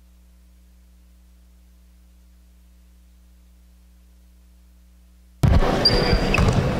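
A faint steady low hum, then about five seconds in the sound of a basketball game in a gym cuts in suddenly and loud, with sharp knocks and a short high squeak.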